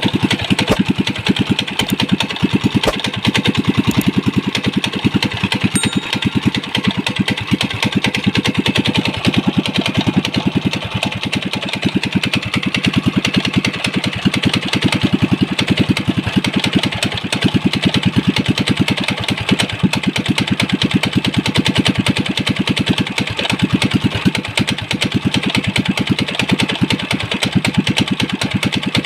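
Small air-cooled single-cylinder engine running steadily, a fast, even string of firing pulses that holds the same speed throughout.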